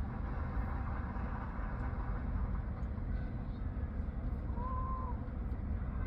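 Steady low rumble of background noise inside a parked car's cabin, with a faint short tone about five seconds in.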